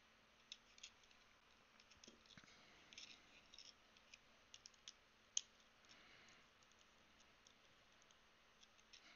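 Faint clicks and light taps from a small screwdriver, screws and hand tools being handled on a small plastic keyboard case, with one sharper click about five seconds in.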